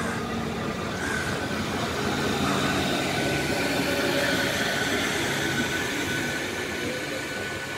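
ICF MEDHA electric multiple unit local train rolling slowly past, its wheels and running gear rumbling on the track, with a steady high whine.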